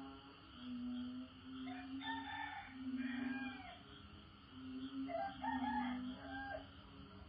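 A rooster crowing twice, about two and five seconds in, over frogs calling in low, repeated droning notes and a steady insect chorus.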